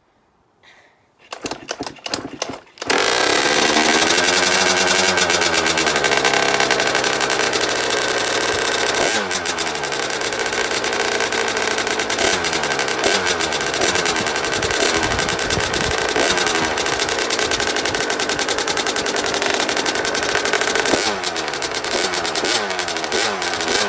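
KTM 50 mini dirt bike's two-stroke single-cylinder engine starting: a few brief sputters, then it catches about three seconds in and runs. Its revs rise and fall several times as it warms up.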